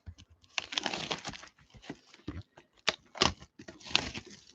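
Shrink-wrap on a sealed box of trading cards crinkling and tearing, with sharp clicks and crackles as the packaging is handled and pulled open.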